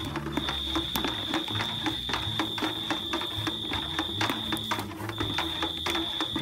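A stick stirring egg mixture and molasses in a metal bucket, giving frequent light knocks and scrapes several times a second, over a steady high-pitched tone that breaks off briefly a few times.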